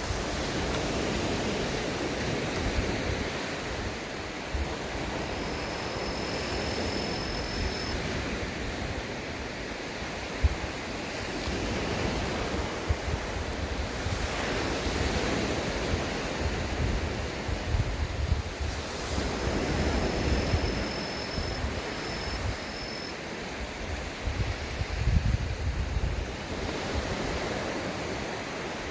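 Sea waves washing onto the beach, swelling and easing every few seconds, with wind buffeting the microphone.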